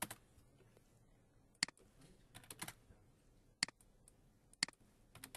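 Separate clicks of a computer keyboard and mouse, about one a second, with a quick run of several about halfway through.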